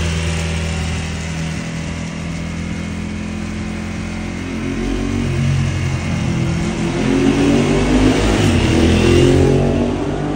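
Ducati 1098R's L-twin engine through a Termignoni 70 mm racing full exhaust. It runs steadily, then accelerates from about halfway, climbing in pitch and loudness to its peak near the end before easing off.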